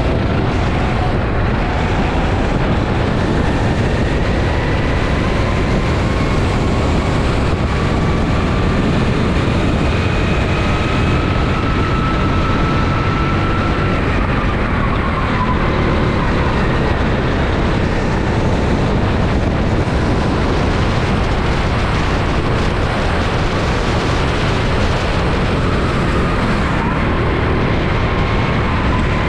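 Rental go-kart engine running on track, heard onboard. Its thin engine note rises and falls with speed through corners and straights, under a loud, steady rushing noise.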